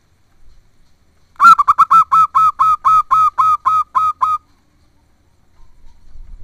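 Zebra dove (perkutut) giving a rapid run of about thirteen short, clipped calls over about three seconds.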